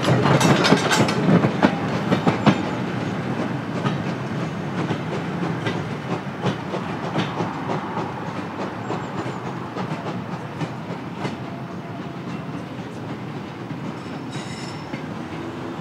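Wheels of a passing train of goods vans and coaches clicking over the rail joints, loudest at first and fading away as the end of the train moves off.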